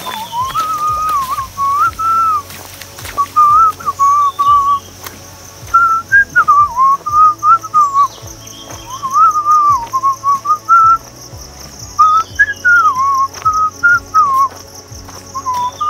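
A tune whistled in short phrases, one clear wavering pitch with slides up and down and brief pauses between phrases, over a steady high hiss.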